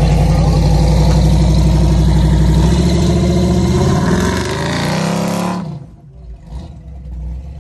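Off-road vehicle engine running hard under load during a strap recovery pull. Its pitch climbs for about a second near the middle, then it drops off abruptly, leaving a quieter low engine rumble.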